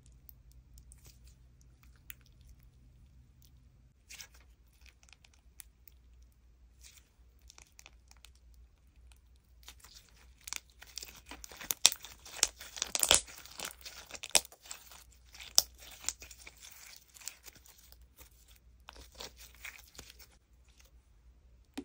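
Slime being stretched, folded and squeezed by hand, making sticky crackling and popping sounds. Only a few soft clicks come at first. About ten seconds in there is a dense run of loud pops and crackles that then thins out, and a shorter burst comes near the end.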